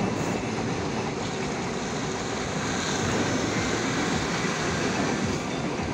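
Tanker truck's diesel engine working hard as it struggles for grip on a muddy slope, its rear tyres slipping: a steady, dense rumbling noise.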